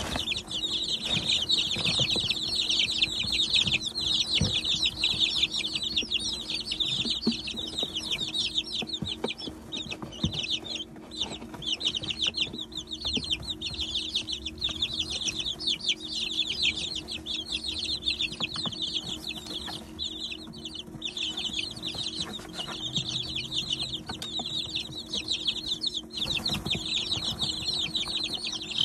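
A brood of 19-day-old chicks of mixed breeds peeping continuously, many quick high chirps overlapping, over a steady low hum.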